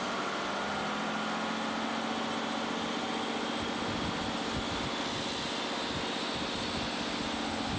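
Heavy lorry's diesel engine running with a steady note as the tractor unit tows an aircraft fuselage on a low trailer across grass.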